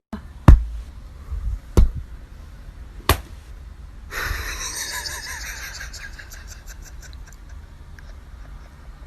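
Three sharp knocks about a second and a quarter apart, then a steady hiss of noise from about four seconds in.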